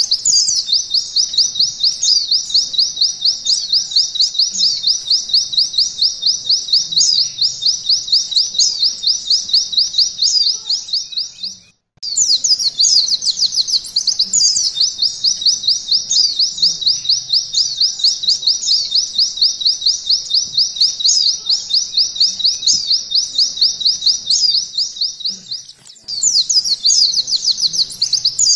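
White-eye (pleci) singing canary-style 'nembak': a long, unbroken run of rapid, high, repeated notes. The song breaks off for an instant about twelve seconds in, then resumes, with a brief lull near the end.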